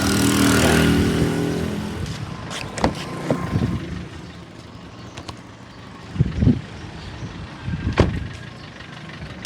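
Kia Cerato engine running at idle with a light knock ('batidazinha') that the owner cannot explain; mechanics variously blame a piston, out-of-adjustment valves or a pulley. A louder engine-like noise swells and fades over the first two seconds, and a few sharp knocks stand out around three, six and eight seconds in.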